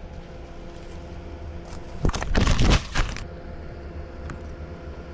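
Pontiac Vibe car engine running steadily, heard from inside the cabin as the car drives into a muddy stretch. About two seconds in, a loud rushing burst lasts about a second.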